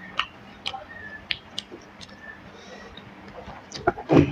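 Close-miked eating sounds of a person chewing rice and curry: scattered sharp, wet mouth clicks and smacks, then a louder burst of mouth noise near the end.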